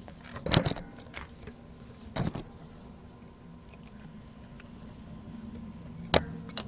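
Three brief, sharp clinks and clatters of small metal tools or parts being handled on a repair bench, the last the loudest, over a steady faint hum.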